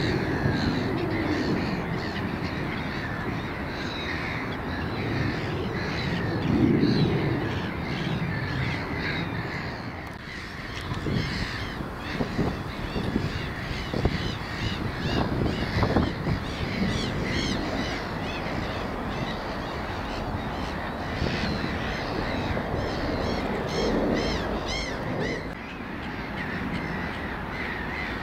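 Birds calling and chirping over a steady low rumble, with a few short knocks about halfway through.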